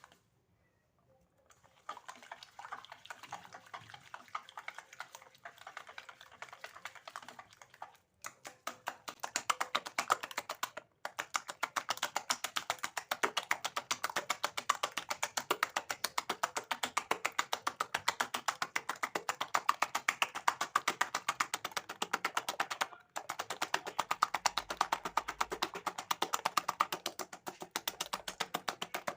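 A utensil beating a batter mixture by hand in a bowl, clicking rapidly against the side in a fast, even rhythm that gets louder after a few seconds.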